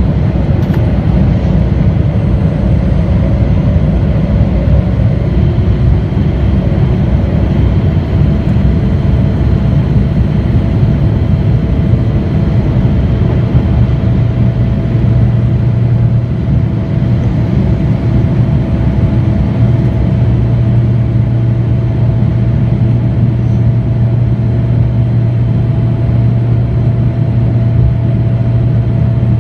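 Boeing 787-9 cabin during the initial climb after takeoff: the GE GEnx-1B turbofans at climb power give a loud, steady rush with a low hum, which strengthens about halfway through.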